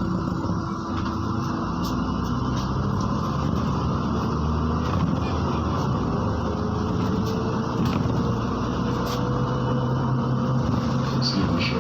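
MAZ-103 city bus under way, heard from inside: steady engine and road noise, with a faint whine that rises slowly in pitch through the second half as the bus gathers speed.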